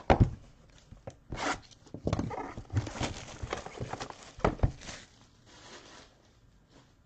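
Handling noise of trading cards and their cardboard box and wrappers: a few sharp knocks on a tabletop, the loudest just after the start and another about four and a half seconds in, with rustling and tearing of packaging in between.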